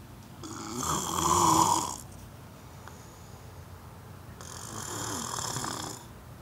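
A man snoring: two snores about four seconds apart, the first one the louder.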